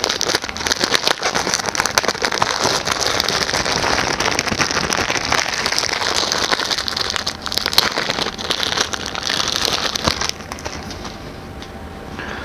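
Plastic wrapping crinkling and crackling as a GPU water block is unwrapped from it, a dense run of small crackles that stops about ten seconds in.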